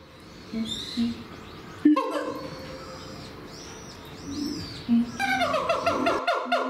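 Siamangs calling: short low booms from the inflated throat sac, high rising-and-falling whoops, and near the end a fast run of short falling barks, several a second, the loudest part. It is the siamang pair's loud call, which seems to stake out their territory.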